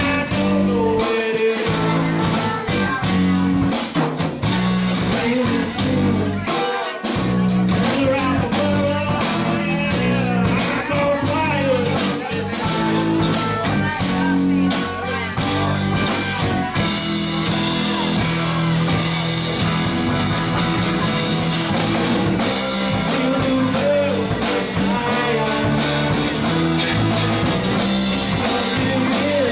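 Live rock band playing a bluesy rock song, with electric guitar, bass and a drum kit keeping a steady beat.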